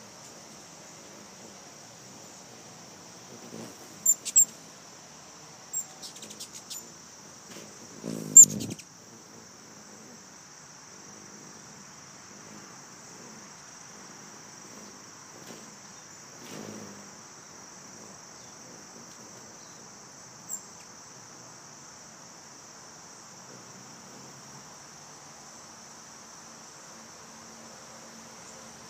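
Steady high-pitched chorus of crickets. A few sharp, loud high chirps cut in about four, six and eight seconds in, and a short low sound comes with the loudest chirp.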